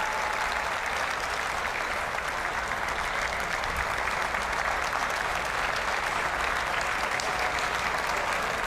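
Large arena audience applauding steadily.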